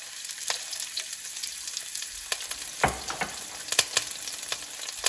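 Onions, pepper and pieces of beef sizzling and crackling in hot oil in a frying pan. A few sharper knocks come about three and four seconds in.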